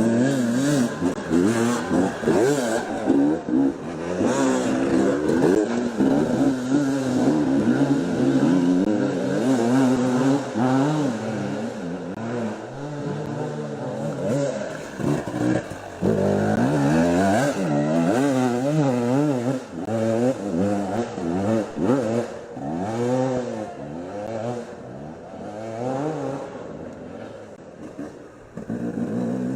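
Two-stroke enduro motorcycle engines revving hard, the pitch swinging up and down quickly as the throttle is worked on and off, with a short drop in level near the end.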